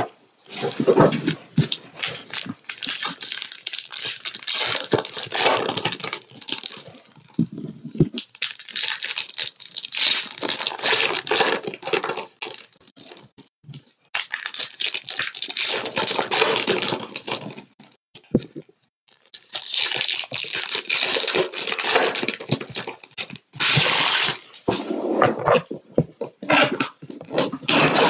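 Trading-card boxes and packs being torn open by hand: wrappers crinkling and cardboard tearing in repeated bursts of a few seconds each, with short pauses between them.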